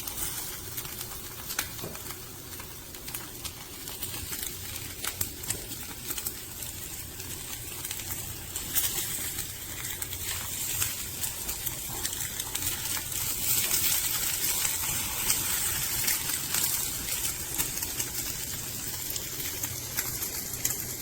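Eggs frying in a teaspoon of olive oil in a hard-anodized nonstick fry pan over raised heat: a steady sizzle with scattered crackles and pops, growing louder about nine seconds in.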